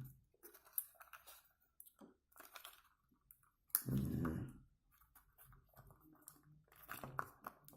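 Small-product packaging being handled and prised at: irregular quiet clicks, crackles and rustles as a fitting that is stuck is worked loose. A brief low vocal sound comes about four seconds in.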